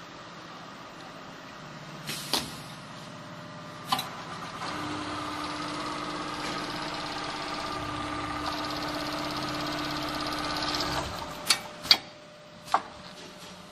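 Richpeace computerized automatic pattern sewing machine stitching along a template at a steady, fast rate for about six seconds. Sharp mechanical clicks come a couple of times before the stitching, and three louder ones come just after it stops.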